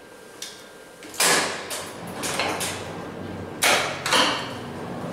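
Ceiling-mounted X-ray tube being moved on its overhead rails: three loud clunks with sliding noise between them, starting about a second in, and a steady low hum underneath.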